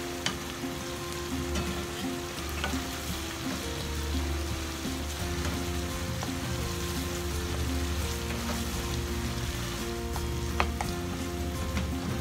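Ground pork and sweet bean sauce sizzling steadily in a frying pan as it is stirred with a wooden spatula, which scrapes and knocks against the pan now and then, one knock sharper about ten seconds in. The meat sauce is cooking down while its cloudy juices boil off.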